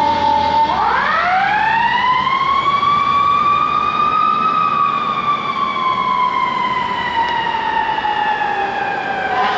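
Fire truck siren on a ladder truck responding to a call. It holds a steady tone at first, then less than a second in sweeps up in pitch over about four seconds and slowly falls again.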